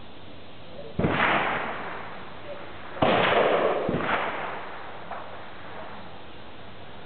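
Gunshots from a neighbouring firing point, echoing under the range roof: one loud shot about a second in, another about two seconds later, and a fainter crack a second after that, each trailing off over about a second.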